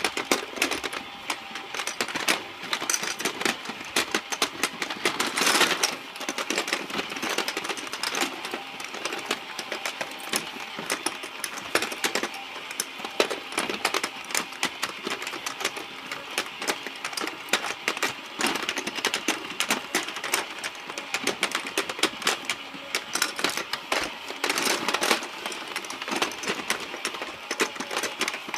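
Battery-powered toy fishing game running, its rotating plastic pond and gears clicking and rattling in a rapid, steady clatter.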